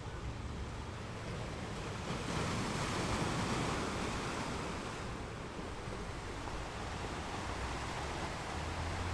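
Ocean waves washing onto a shore: a wave swells and breaks about two seconds in, then the wash eases off again.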